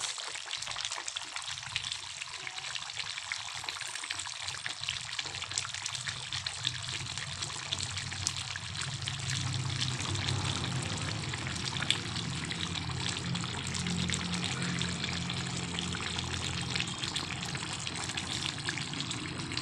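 Chicken afritada simmering in its tomato sauce in a pan, with a dense stream of small bubbling pops; the stew is nearly cooked. A low steady hum grows louder about nine seconds in.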